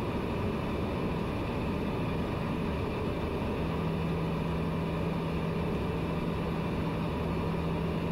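Steady cabin noise of a TBM 900 single-engine turboprop in flight: the Pratt & Whitney PT6A engine and propeller hum under a rush of air. A steady low droning note joins in a little before halfway and holds.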